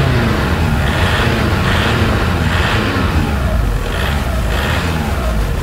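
Engine-like revving that rises and falls in a repeating rhythm about once a second over a steady low rumble, as a Hot Wheels RC monster truck spins its wheels while stuck and digging into sand.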